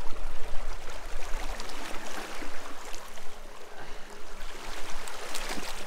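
Small waves lapping and sloshing against the rocks at the waterline, a steady watery hiss, with wind rumbling on the microphone in the first second or so.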